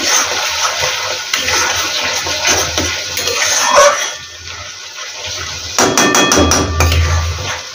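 Metal spatula scraping and knocking against a metal kadai as a thick tomato-spice masala is stirred and fried, with a quieter pause about four seconds in and a run of sharp taps about six seconds in.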